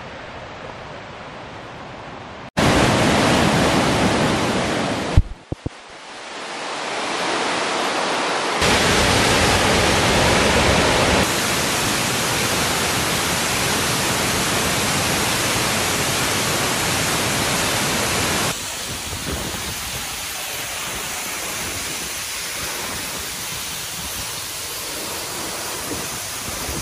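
Moul Falls waterfall roaring with a loud, steady rush of falling water. The rush starts suddenly about two and a half seconds in and jumps in loudness and tone several times as the shots change.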